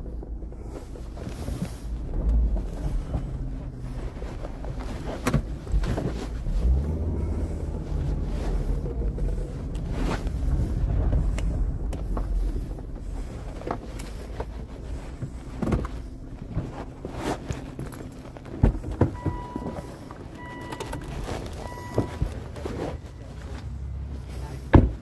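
Car cabin noise while driving: a steady low engine and road rumble with scattered knocks from the handheld phone. Near the end the car's warning chime beeps several times, about once a second, and a single sharp knock follows just before the end.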